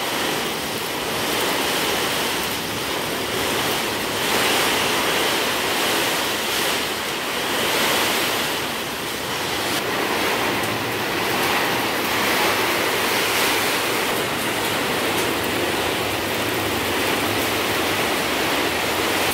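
Heavy rain falling steadily, an even rushing hiss.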